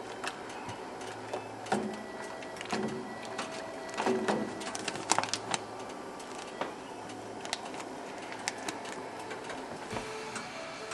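Kitchen handling sounds from home brewing: scattered clicks and knocks of a spoon and utensils against a steel brew pot, busiest about four to five seconds in, over a low hum that comes and goes.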